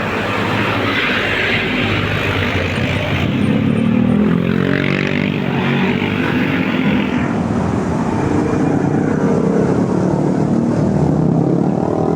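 Large bus diesel engine running hard as the bus passes, its pitch rising and falling, with a hissing noise over it that stops abruptly about seven seconds in.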